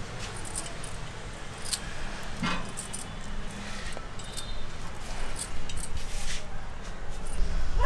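A pet dog vocalising close by, with scattered light metallic clicks as food is set on a wire barbecue grill.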